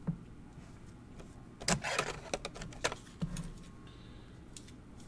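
Hands handling a trading card and a clear plastic card holder: light rustling with a few small clicks and taps, bunched about two to three seconds in.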